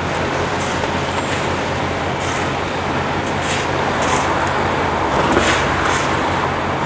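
Diesel engine of road-repair machinery running steadily at the asphalt patching site. Over it come a few scrapes of shovels working fresh asphalt, about halfway through.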